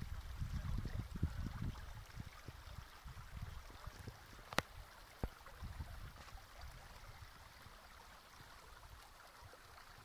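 Faint outdoor ambience: a low rumble, heaviest in the first two seconds, under a steady rushing hiss. A sharp click comes about halfway through.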